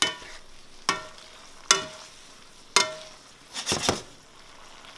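Metal tongs clinking against a skillet as bucatini is tossed in sauce: four sharp, ringing clinks about a second apart, then a short clatter near the end. A faint sizzle of sauce cooking in the pan runs underneath.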